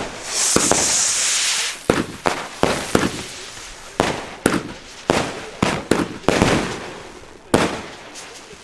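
Consumer firework battery (Nico Spinning Dahlia, 13 shots) firing in quick succession: a string of sharp bangs, each dying away, about two a second, with a hissing burst for the first second and a half or so.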